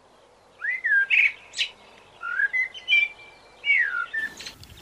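A songbird singing: three short phrases of sliding whistled notes, some followed by a high, thin twitter.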